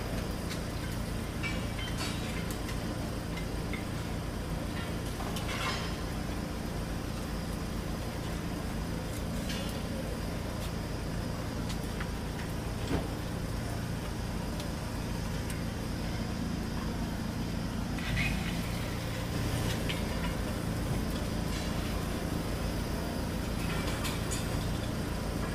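An engine idling steadily, a low even hum, with a few sharp clicks and knocks over it.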